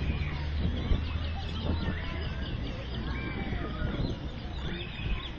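Many birds chirping and calling in short rising and falling notes, over a steady low rumble.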